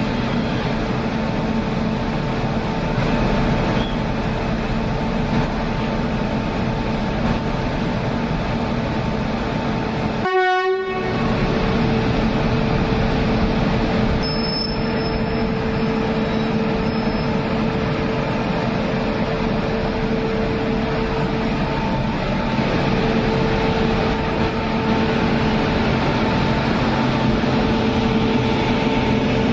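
Locomotive horn sounding in long held blasts over the steady running noise of a departing express train, with a short break between blasts about two-thirds of the way in. The sound drops out briefly about a third of the way in.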